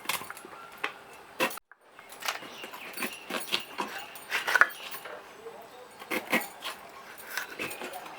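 A blade cutting raw green jackfruit: irregular sharp clicks, knocks and scrapes, with a brief break about one and a half seconds in.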